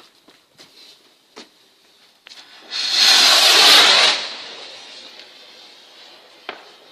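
Large firework rocket launching: a loud rushing hiss from its motor starts about three seconds in, lasts just over a second, then fades away slowly as it climbs.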